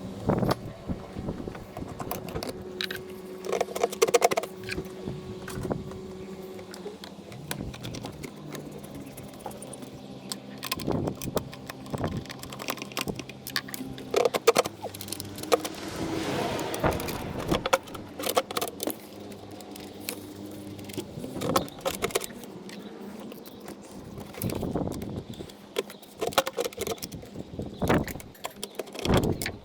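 Hand tools and plastic and metal parts being handled in a car's engine bay while the air intake tube is taken off the air box: scattered clicks, knocks and metallic clatter at irregular intervals, over a faint steady hum.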